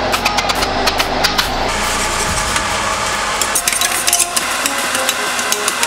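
Ground plant-based meat and chopped onions sizzling in a stainless steel skillet, with a metal spatula scraping and clicking against the pan as the meat is broken up. A low hum runs under the first two seconds or so, then fades.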